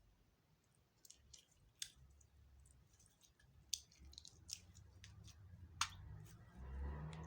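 Clear slime being mixed by hand: faint, scattered sticky clicks and pops, with a low squishing handling noise building up near the end.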